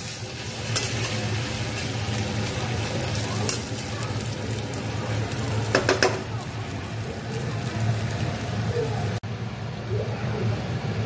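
Diced potatoes and pumpkin frying in oil in a metal kadai, sizzling steadily while a metal spatula stirs and scrapes them around the pan, with a few sharp knocks of the spatula against the pan.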